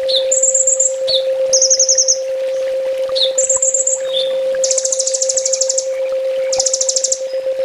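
Kolibri ninja sunbird singing, a tutor song for caged birds: repeated short, very high, rapid buzzy trills with brief sliding notes between them. A steady low hum runs underneath.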